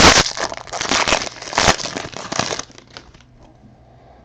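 Trading-card pack wrapper crinkling as it is torn open and crumpled, stopping about two and a half seconds in.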